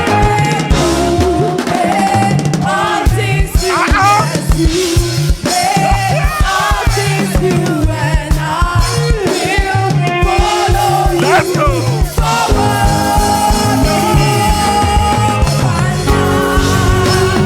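Live band playing gospel-style music with a pulsing bass line and a bending melodic lead; about twelve seconds in it settles into held chords.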